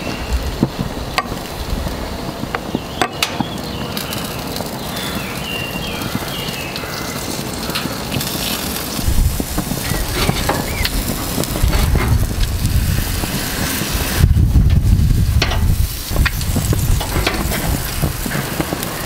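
Barbecue grill sizzling steadily as glaze and fat drip from chicken drumsticks onto the hot grate, with a few sharp clicks in the first few seconds and a low rumble swelling in the second half.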